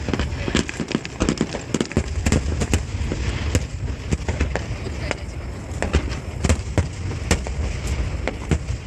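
Fireworks going off in rapid succession: a continuous run of sharp bangs and pops, several a second, over a low rumbling background.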